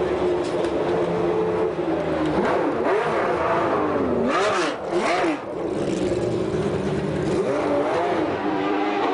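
Formula One car engine running in the pit lane, idling steadily and then blipped several times from about two seconds in, its pitch swinging up and down. A short burst of hiss comes around the middle.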